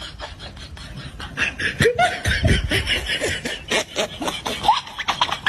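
A person laughing in rapid breathy bursts that grow denser and louder after about a second and a half.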